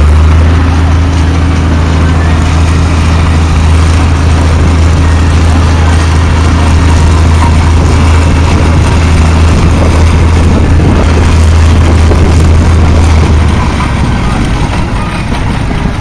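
Heavy diesel engine, the Mercedes lorry engine fitted to a converted Fowler ploughing engine, running steadily with a deep, even hum. The hum drops away about 13 seconds in.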